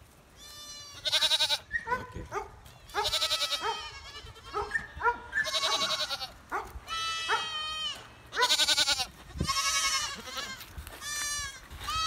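Several goats bleating in turn: long, loud, wavering calls mixed with shorter ones, sometimes overlapping. The goats are excited, calling for attention at feeding time.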